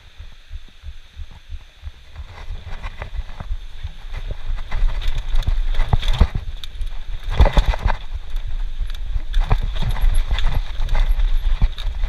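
Mountain bike rattling and clattering over a rough, rocky trail descent, with many sharp knocks under a low rumble. Quiet at first, it grows loud about four seconds in as the bike picks up speed.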